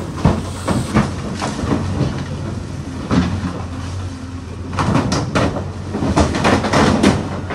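JCB backhoe loader's diesel engine running steadily while its arm smashes a roadside stall of wooden poles and tarpaulin, with repeated cracks and crashes of breaking wood, thickest about five to seven seconds in.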